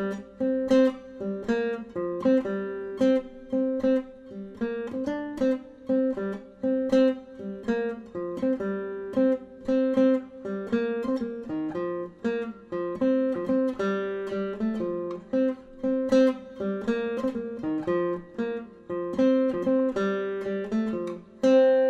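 Background music: acoustic guitar picked in a steady rhythm, ending on a louder held chord near the end.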